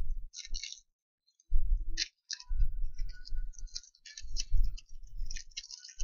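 Irregular clicks, taps and rustling from small items being handled as a replacement power-switch connector is fetched for fitting. A gap of about a second comes early, then the handling turns busier.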